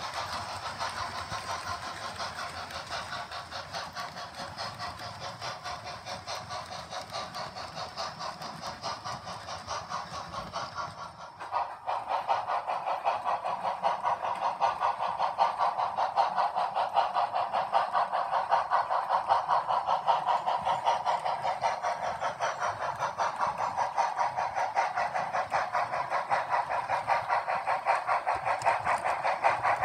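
Model steam locomotives Southern 630 and 4501 running together along the track: a steady, rapidly pulsing mechanical running sound. It breaks off briefly about a third of the way in, then returns louder as the engines draw near.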